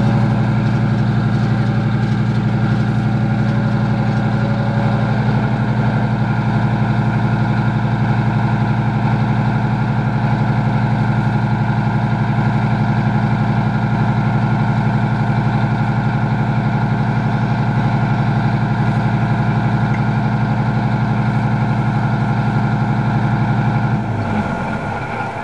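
Type 90 tank's V10 two-stroke turbodiesel engine idling steadily and heavily. Near the end it winds down in pitch and loudness, as the engine is shut off.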